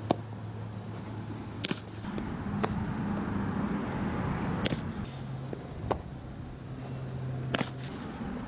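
Sharp knocks of a softball being hit by a bat and popping into a fielder's leather glove, about six in all, a second or two apart, over a steady low hum.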